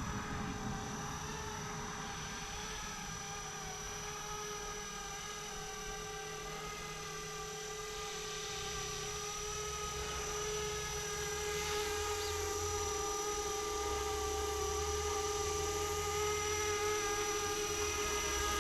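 Flishrc Little Bird 450 RC helicopter in flight: a steady whine from its motor and rotor, wavering slightly in pitch and growing somewhat louder in the second half.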